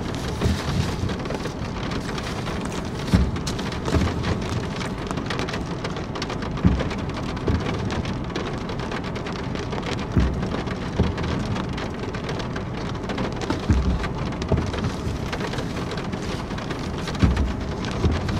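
Steady rain falling on a car's roof and windows, heard from inside the cabin, with a few soft low thuds scattered through it.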